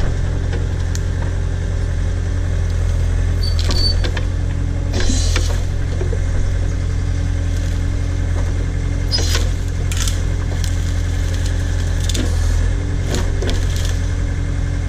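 Case/Davis D100 backhoe's engine running steadily while it digs at a tree stump's roots, with several sharp knocks from the bucket and linkage.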